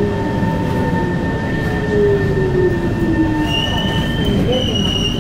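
C151 MRT train heard from inside the car as it slows into a station: a steady rumble with a motor whine that falls in pitch. About three seconds in, a high steady squeal from the wheels begins.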